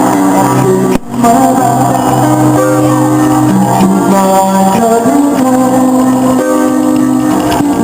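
Music with singing and a guitar, cut off briefly about a second in and then carrying on.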